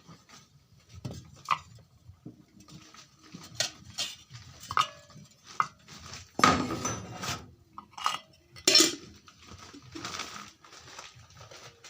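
Dishes and metal utensils clinking and clattering in irregular knocks, some of them ringing briefly, with the loudest clatters about halfway through.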